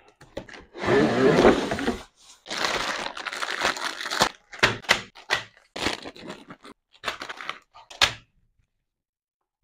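Cardboard box of a brick-building set being opened with a scraping rub, then plastic bags of parts rustling and crinkling as they are pulled out. A string of short crackles and knocks follows as the bags are set down one by one on a table.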